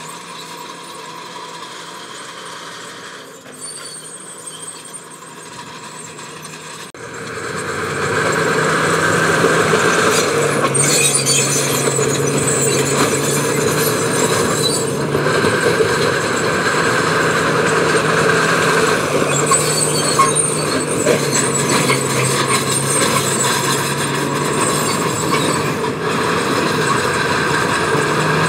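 Heavy diesel construction machinery working: the engine grows much louder about seven seconds in and then runs hard and steady, with high-pitched metallic squealing at times.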